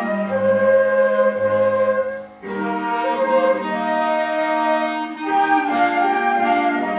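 A small instrumental ensemble playing a slow hymn tune in held notes, with several melodic lines sounding together. The phrase breaks off briefly about two and a half seconds in, and the next phrase begins.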